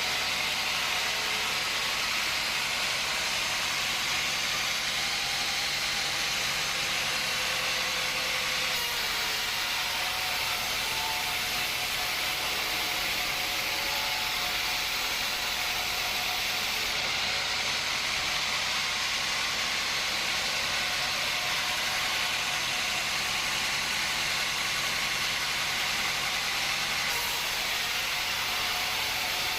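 Woodworking machinery running steadily: a constant, even hissing noise with no cuts or knocks standing out.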